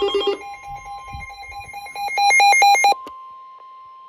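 Weather alert radios sounding an alarm: fast pulsed electronic beeping that gets louder about two seconds in, then cuts off just before three seconds. A single steady tone carries on after it, the NOAA Weather Radio warning alarm tone that comes before a severe thunderstorm warning.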